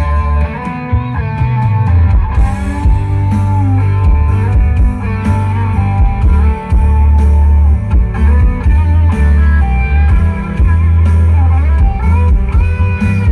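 Instrumental break of a Thai pop song: a lead melody that bends in pitch over heavy bass, played loud through an open-air cinema's PA sound system during a sound test.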